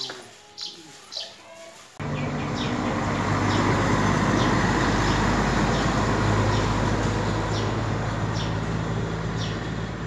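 High, thin bird chirps repeat about once a second. About two seconds in, a loud, steady motor rumble with a low hum starts suddenly and runs on, and the chirps carry on above it.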